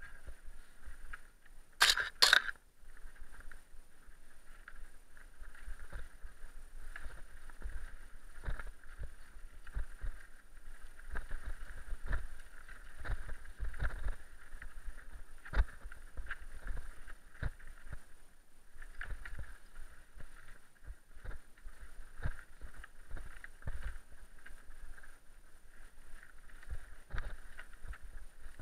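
Mountain bike rattling and clattering as it is ridden down a rocky dirt trail, with frequent irregular knocks and thumps as the wheels and frame hit stones. A loud sharp double clatter about two seconds in.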